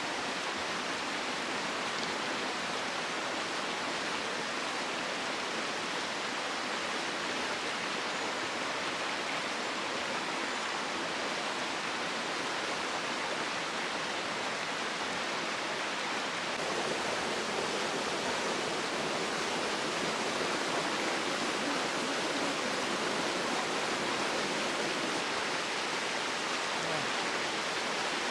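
Mountain stream water rushing steadily over rocks. About two-thirds of the way through it turns slightly louder and deeper.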